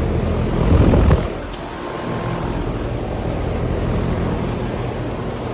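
Two outdoor HVAC condensing units running side by side: a steady hum of compressors and condenser fans. A louder rush comes in briefly about a second in.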